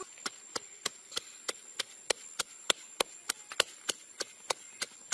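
Pestle pounding red chillies in a mortar: sharp, evenly spaced knocks, about three a second.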